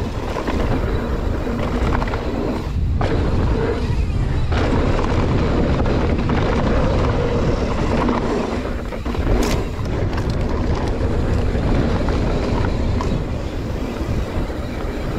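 Mountain bike descending a dirt trail: wind rushing over the microphone on top of tyre roar and the bike rattling, with a couple of sharp knocks from bumps.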